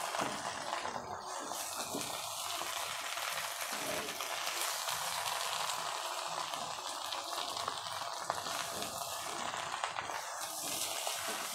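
Boal fish and brinjal frying in oil in a pan with a steady sizzle, stirred with a wooden spatula that scrapes the pan now and then. The dry curry is almost fully cooked.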